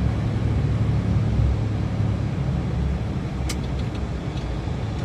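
Steady low rumble of road and engine noise heard from inside a moving car's cabin while cruising on a highway. A single sharp click comes about three and a half seconds in.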